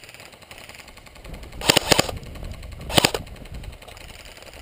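Airsoft guns firing two short rapid bursts, one a little under two seconds in and a shorter one about a second later.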